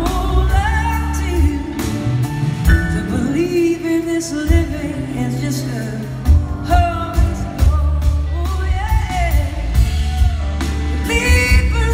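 A live blues-rock band playing a slow song, with electric guitar, bass, drums and organ, and a lead melody line that glides and bends in pitch over the top.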